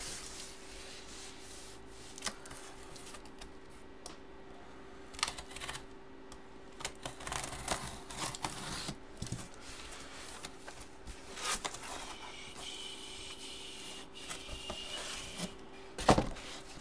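Cardboard photo box being handled and opened: scattered rustling and sliding of cardboard with light taps, and a louder knock near the end.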